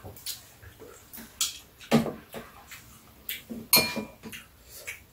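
Metal spoons and chopsticks clinking and tapping against ceramic bowls and a metal tray while eating, a dozen or so scattered short clinks; one about four seconds in rings briefly.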